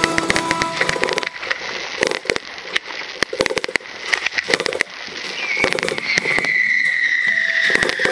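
Aerial fireworks crackling, with clusters of sharp cracks and pops. A long, slowly falling whistle starts about halfway through.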